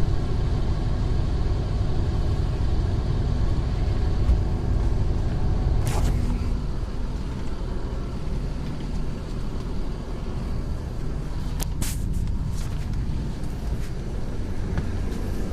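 Mercedes-Benz O500R BlueTEC 5 bus engine running steadily, with brief hisses about six seconds in and twice around twelve seconds in.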